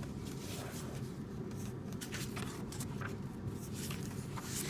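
Paper pages of a coloring book being handled and turned: soft, scattered rustles and light scrapes over a steady low hum.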